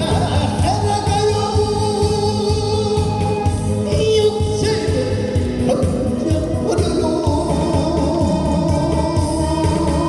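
A male trot singer singing live into a handheld microphone, amplified over loud accompaniment with a steady beat.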